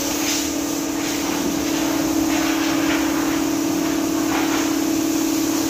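Steady, fairly loud machine hum of car-wash equipment, such as a pump or compressor motor, holding one pitch over a constant hiss, with faint short hisses now and then.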